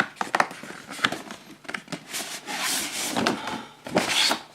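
A cardboard keyboard box being opened by hand: a run of small taps and knocks, then cardboard sliding and scraping for about a second, and another short scrape near the end.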